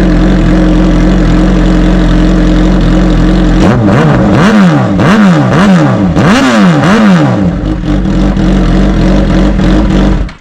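A 2009 Suzuki GSX-R 750 K9's inline-four engine through an aftermarket slip-on end can. It idles steadily, is blipped up and down in a quick series of revs from a few seconds in, settles back to idle, and cuts off abruptly near the end.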